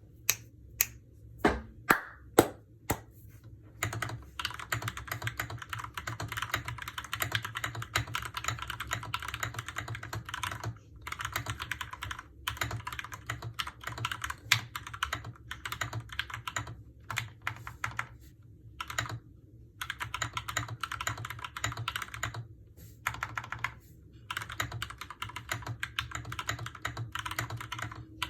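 Custom mechanical keyboard with lubed Gateron Milky Yellow linear switches and stock stabilizers being typed on: a handful of single, separate key strikes first, then continuous fast typing broken by short pauses.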